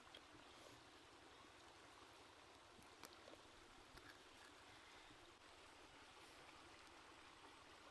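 Faint, steady rush of a shallow stream flowing over rocks, with one light tick about three seconds in.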